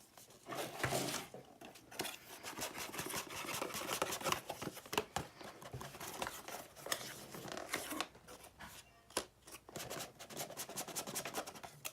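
Rustling and irregular clicking of boxed Rubik's cubes and their packaging being handled.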